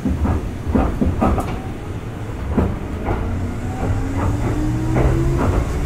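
Kintetsu 1810 series electric train car Mo 1826 pulling away: a traction motor whine starts about two and a half seconds in and rises steadily in pitch as the train gathers speed. Underneath are a low running rumble and scattered clicks and clunks from the wheels and running gear.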